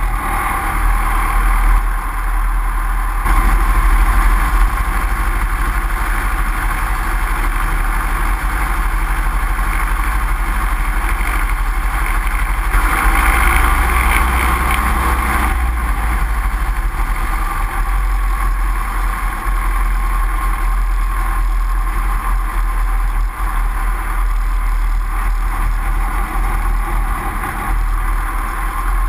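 Great Lakes 2T-1A-2 biplane's piston engine and propeller running steadily at taxi power, swelling louder for a couple of seconds about halfway through.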